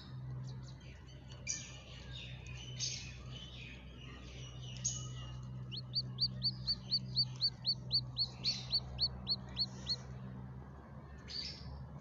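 A newly hatched chicken chick peeping: a quick, even run of about fifteen high peeps, roughly four a second, starting about six seconds in, after a few scratchy rustles.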